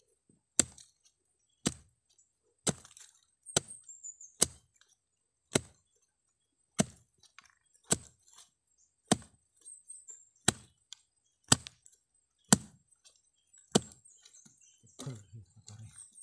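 Machete blade striking into soil and roots around a shrub's root ball, one sharp chop about every second, cutting the root ball free to lift the tree. Softer scraping near the end.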